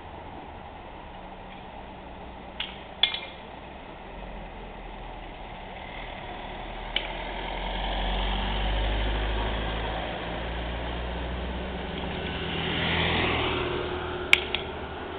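Vehicles passing on a wet street: a low engine rumble swells up about halfway through and eases off, then a second pass near the end comes with a falling swish of tyres. A few sharp clicks and knocks sound over it.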